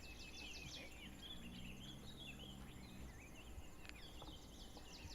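Faint open-air ambience: small birds chirping throughout, with a steady insect buzz that fades in the first second and a faint low hum for about a second and a half near the middle.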